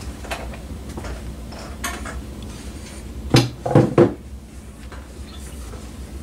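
Three quick clattering knocks close together about three and a half seconds in: hard objects set down or bumped on the workbench, with softer handling noises around them.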